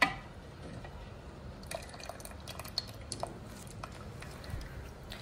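Thick rice-and-milk porridge dripping and splashing from a steel ladle back into a clay pot, with a few faint clicks.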